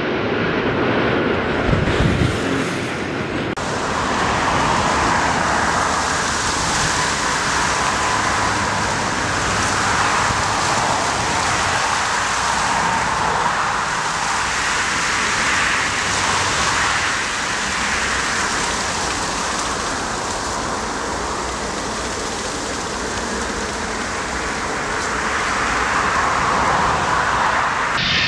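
Antonov An-124's four turbofans at takeoff power, with wind buffeting the microphone. After a cut about three and a half seconds in, steady jet engine noise with a faint whine from airliners on landing approach.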